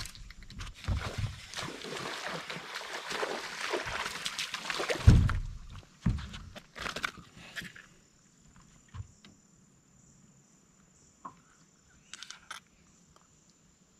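A hooked largemouth bass thrashing and splashing at the surface while it is reeled in. A heavy splash about five seconds in as it is swung out of the water is followed by knocks as it comes aboard the boat. After that come only a few small knocks and handling sounds.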